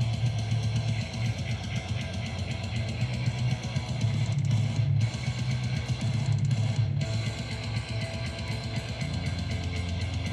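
Background rock music with guitar and drums over a steady, heavy low end.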